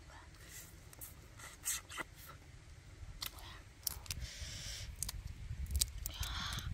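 Cooked shrimp being eaten and peeled by hand: scattered small crackles and clicks of shell breaking and chewing, with a short rustling crackle near the end as a shell is pulled off.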